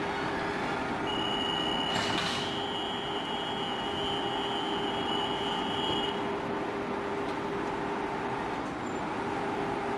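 Class X11 electric commuter train standing at a platform: a steady electrical hum throughout. A high steady tone sounds from about a second in until about six seconds, and a short burst of hiss comes about two seconds in.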